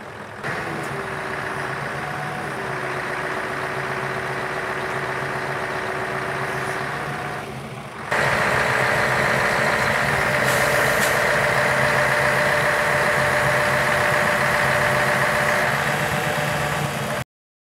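Scania R144's 14-litre V8 diesel running steadily at idle, with a steady whine, typical of the hooklift's hydraulic pump working, coming in twice for several seconds over the engine. The engine is louder and closer from about halfway.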